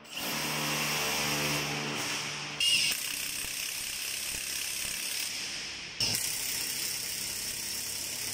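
Cordless drill running, driving screws to fix metal mounting brackets to a wall. The sound changes abruptly at about two and a half seconds and again at six seconds.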